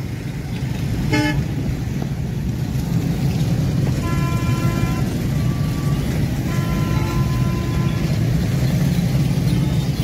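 Busy road traffic with a steady rumble of engines. Vehicle horns honk over it: a short toot about a second in, a longer honk about four seconds in, and another a couple of seconds later.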